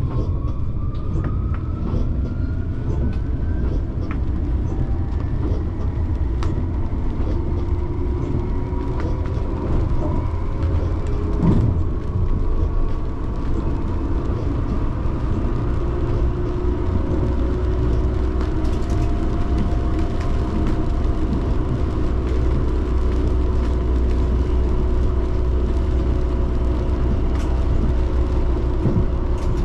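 RandstadRail light-rail tram on the move: the motor whine rises in pitch in the first few seconds as it picks up speed, then holds steady over a constant low rumble of wheels on rail. One sharp knock comes about eleven seconds in.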